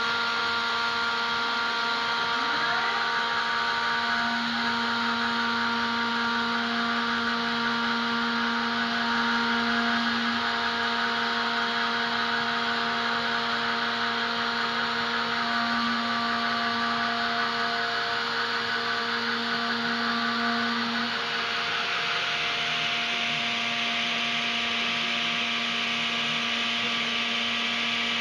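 CNC milling machine cutting an aluminium backplate with an end mill: the spindle gives a steady whine of several tones over the hiss of the cut. The tone and cutting noise change about 21 seconds in, as the cut moves on.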